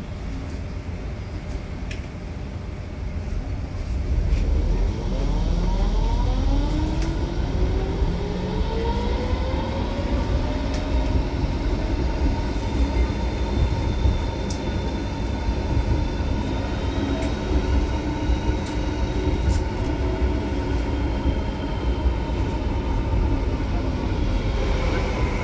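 Type R tram running, heard from inside the car. About four seconds in it pulls away: the traction motor whine rises in pitch as the tram accelerates. From about twelve seconds it holds a steady tone over the rumble of wheels on the rails.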